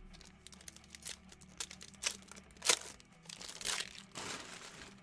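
Foil trading-card pack wrappers of Panini Mosaic basketball packs crinkling and tearing as a pack is ripped open by hand. The sound comes in several short crackles, the loudest about two and a half seconds in, followed by longer rustling.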